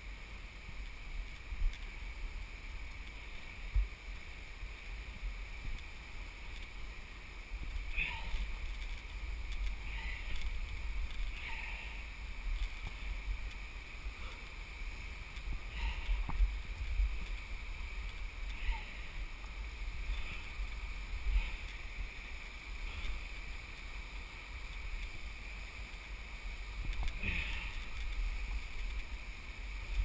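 A rappeller working down a rock face: a low rumble of wind and handling on a head-mounted camera's microphone, a steady high hum, and a scrape or knock of rope and gear against the rock every few seconds.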